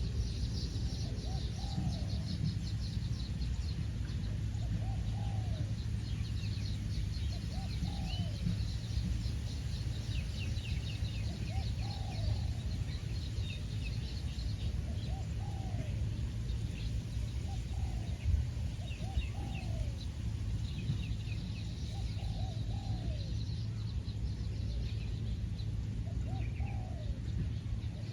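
Spotted doves cooing: short arched coos, often in pairs, repeating every couple of seconds. Higher chirps of small birds and a steady low rumble run beneath.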